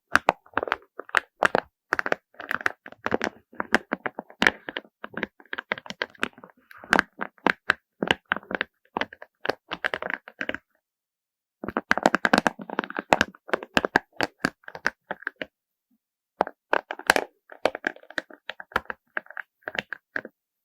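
Handfuls of small beads clattering and clicking against each other in dense runs of quick clicks, with two short pauses, one just past the middle and one about three quarters of the way through.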